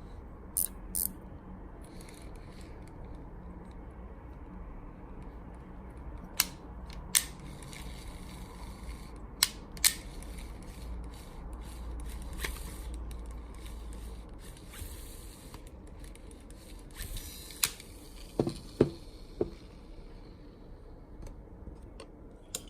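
Shimano 16 Antares DC baitcasting reel cranked by hand, its gears running with a steady rubbing whirr and occasional sharp clicks. This is the abnormal noise on turning the handle that the reel was sent in for.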